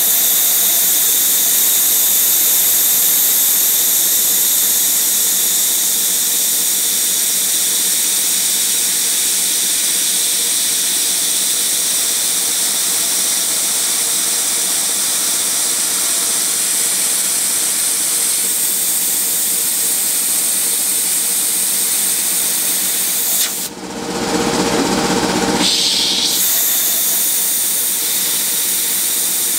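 CNC milling machine spindle running a 1/16-inch end mill through brass on the final pass of a cam groove: a steady high-pitched whine with cutting hiss. About 24 seconds in, the high whine drops out for two seconds while a lower, duller noise takes over, then the steady whine returns.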